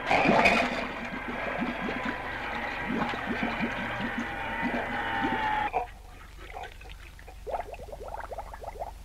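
Cartoon water sound effect: gurgling and bubbling over held tones, cut off abruptly about six seconds in, then a short run of quick, fainter bubbles near the end.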